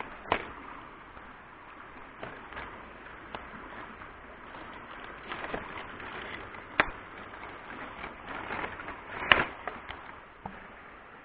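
Rustling of leafy plants being handled, with a few sharp snaps, about three of them loud, over a steady hiss. Typical of bird's-nest fern fronds being pulled and broken off by hand.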